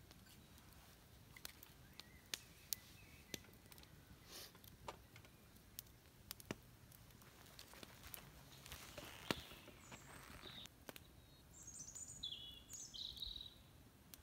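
Quiet woodland night ambience: scattered sharp clicks and ticks, a brief soft hiss about nine seconds in, and a few short bird chirps near the end.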